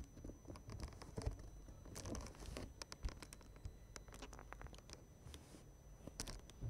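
Soft rustling and scratching of bedding and pillow fabric in short irregular bursts with small clicks, as a kitten plays and claws among the pillows. There is a denser rustle about two seconds in and another near the end.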